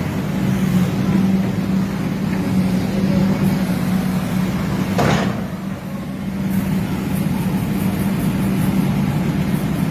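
Excavator's diesel engine running at a steady pitch, with a short noise about halfway through.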